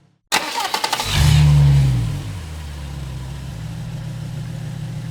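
A car engine being started: the starter cranks for well under a second, the engine catches and flares up in revs, then drops back to a steady idle.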